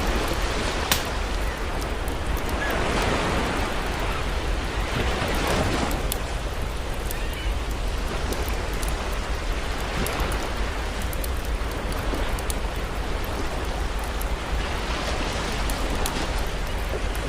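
Sea waves washing in, a steady hiss that swells every few seconds, with a wood campfire crackling in scattered sharp pops over it.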